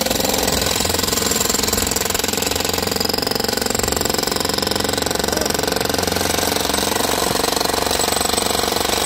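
Three electric jackhammers breaking up a concrete slab, hammering together without a break in a dense, steady racket.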